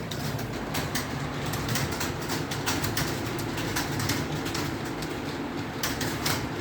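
Typing on an Acer computer keyboard: an uneven clatter of key clicks, several a second, over a steady low hum.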